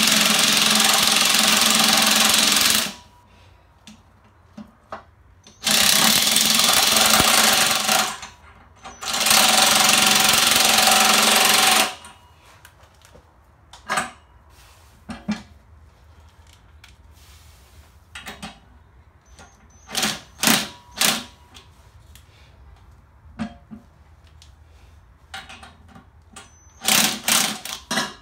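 Cordless impact wrench hammering a bolt tight into a Turbo 400 transmission case in three long bursts, the last stopping about twelve seconds in. After that come scattered clicks and knocks of metal parts being handled.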